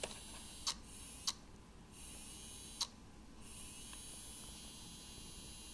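The tiny motor of a Cheerson CX-10 micro quadcopter spinning its propeller with a faint, steady high whine, a fault that keeps one motor running even with the quad switched off. Three sharp clicks come in the first three seconds, and the whine drops out for about two seconds after the second click, then comes back.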